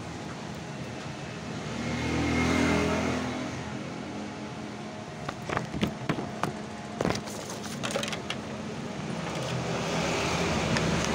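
A motor vehicle's engine running steadily, growing louder about two seconds in and again near the end, with a cluster of sharp clicks and knocks in the middle.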